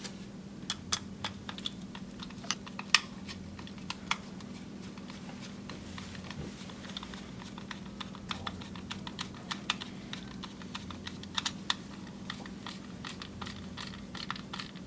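Irregular small clicks and taps of metal lock parts being handled while a screwdriver drives in the retaining screw that secures the lock cylinder in the access device's body. A steady low hum runs underneath.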